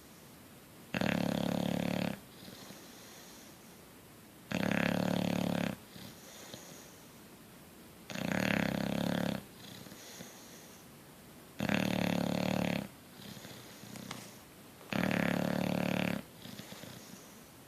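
Sleeping bulldog snoring: five loud, rattling snores about every three and a half seconds, each followed by a softer breath out.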